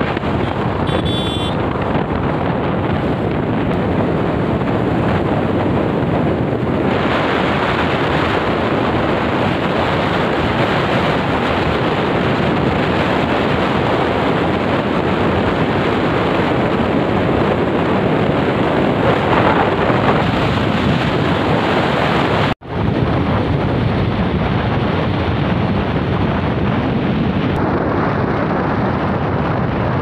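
Steady wind rushing over the microphone of a moving motorcycle, with road noise mixed in. It drops out for an instant about three-quarters of the way through.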